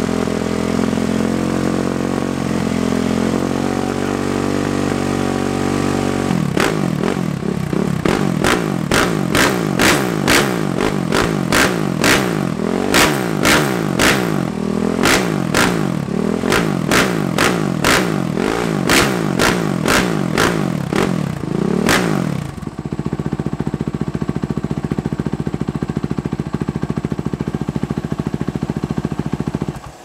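Freshly rebuilt Suzuki RM-Z450 four-stroke single-cylinder engine running through an FMF PowerCore 4 muffler. It idles steadily, then about six seconds in it is blipped over and over in quick revs that rise and fall, with sharp cracks from the exhaust. Near the end it settles back to a steady run.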